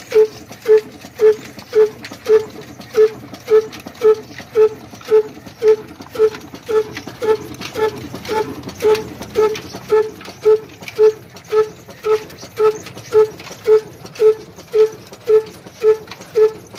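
Old Ruston Hornsby horizontal diesel engine running at a slow, steady speed with an even exhaust beat, just under two beats a second, each beat a short ringing pop. It is driving a belt-driven wheat-grinding mill.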